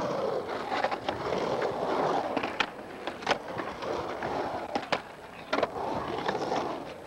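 Skateboard wheels rolling and carving on the concrete walls of an empty pool, the rolling noise rising and falling in waves. There are a few sharp clicks from the board along the way.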